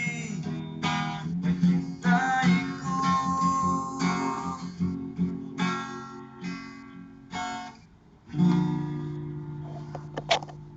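Acoustic guitar strumming chords. About eight seconds in, a last chord is struck and left to ring out and fade, followed by a few sharp clicks near the end.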